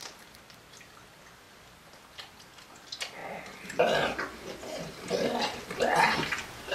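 A man noisily eating a sausage, starting about three seconds in: wet chomping and slurping broken by grunts.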